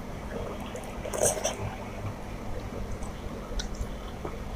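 Close-up eating sounds: wet chewing of rice and chicken curry eaten by hand, with a louder wet mouth sound about a second in. A few short clicks follow later as fingers mix food on a steel plate.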